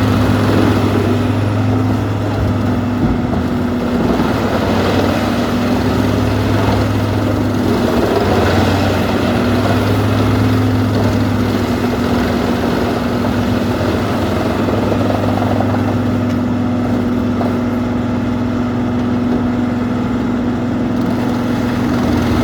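Peterson 4310B wood chipper running steadily under power, a deep engine hum with a broad rushing noise on top that rises and falls a little.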